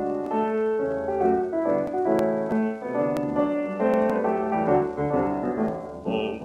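An unrestored transfer of an HMV 78 rpm gramophone record playing the instrumental introduction before the song, with a few sharp clicks of record surface noise. The singer comes in right at the end.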